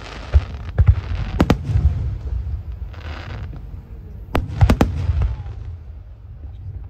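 Aerial fireworks bursting overhead: sharp bangs in two clusters, the first within the first second and a half, the second just over four seconds in, with a hissing crackle and a deep rolling rumble between them.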